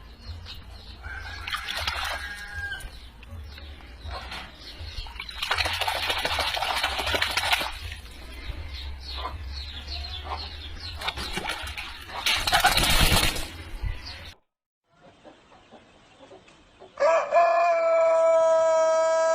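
Chickens clucking and a rooster crowing, louder in two spells about six and twelve seconds in. After a brief drop to near silence, a loud, steady held tone with many overtones begins near the end.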